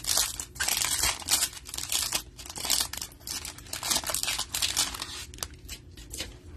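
Foil wrapper of a 2022 Optic football trading-card pack being torn open and crinkled by gloved hands: a run of sharp crackling rips and crumples, thinning to a few scattered ticks near the end as the cards come free.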